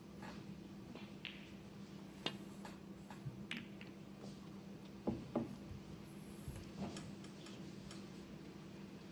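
Sharp clicks of snooker balls: a few scattered single knocks, then a louder close pair about five seconds in as the cue strikes the cue ball and it knocks into another ball. A faint steady low hum lies underneath.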